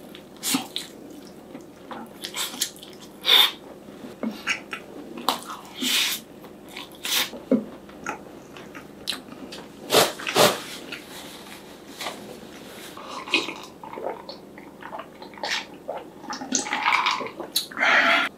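Close-miked eating sounds: bites into a sauced fried chicken drumstick and wet chewing, with irregular sharp smacks and clicks from the mouth.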